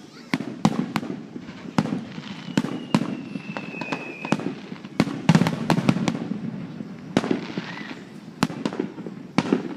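Fireworks bursting: many sharp bangs in quick, irregular succession, with a thin whistle sounding for about two seconds a couple of seconds in.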